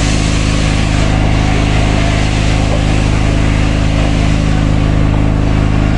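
Steady low machine hum, like an engine running at a constant speed, under a constant hiss, both unchanging throughout.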